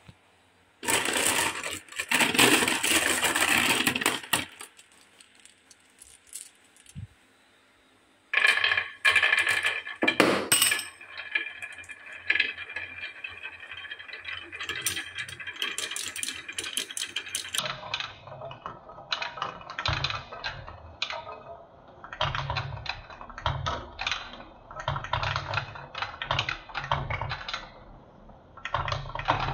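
Marbles clattering on a wooden marble run. A burst of rattling comes first, then a short lull. After that, marbles click against each other and roll along the wooden rails, and in the last third many marbles roll round wooden spiral tracks with a stream of small knocks and clicks.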